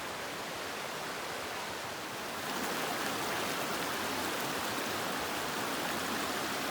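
Rushing water of a mountain creek: a steady hiss that grows a little louder about two and a half seconds in.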